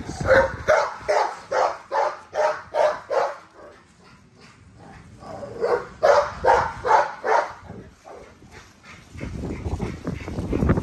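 Puppy barking in quick, high yaps, about three a second. One run lasts about three seconds; a second run starts about six seconds in.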